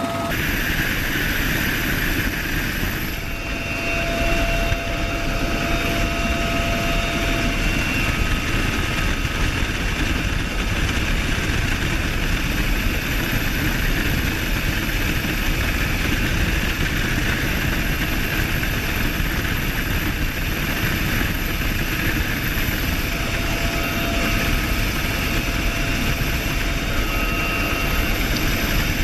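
Bell UH-1Y Venom helicopter running steadily, its twin turbine engines giving a steady high whine over the beat and rush of the rotor.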